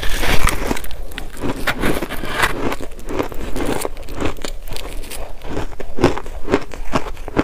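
Close-miked biting and chewing of a big mouthful of frozen crushed ice: a dense, irregular run of sharp crunches and crackles as the chunk is bitten off and ground between the teeth.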